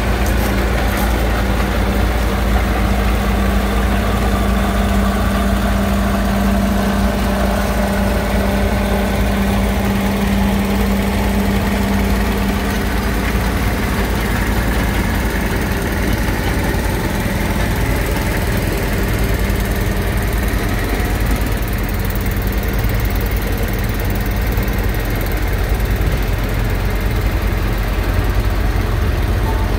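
Heavy antique tractor engine running steadily at low speed, a deep rumble; a steady hum on top of it fades out about halfway through.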